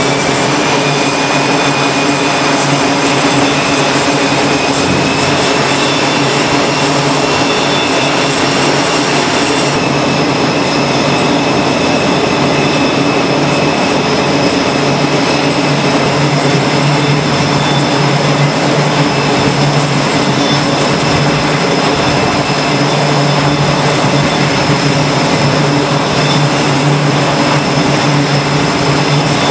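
F/A-18 Hornet jet engines running on a carrier flight deck: a steady loud engine noise with a high, steady whine over it, shifting slightly at a couple of cuts.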